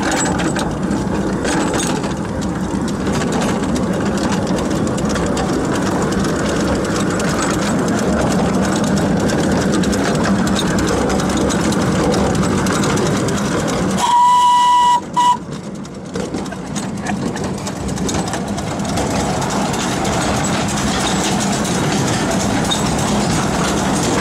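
Miniature narrow-gauge steam locomotive running along the track with a steady rumbling clatter. About 14 s in its steam whistle sounds, a single steady tone held for just under a second, then a second very short blast.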